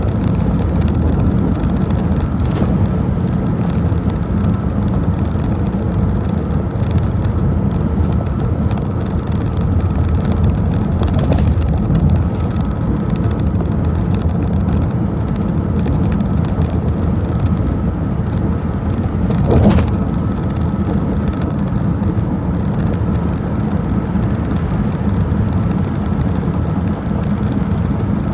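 Car driving at highway speed: steady low road and wind noise, with one brief louder rush about two-thirds of the way through.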